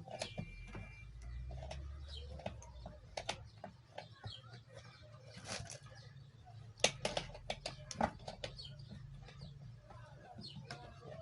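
Scattered clicks and knocks of small parts and tools being handled, loudest twice near the middle, over a low hum, with a bird cooing faintly behind.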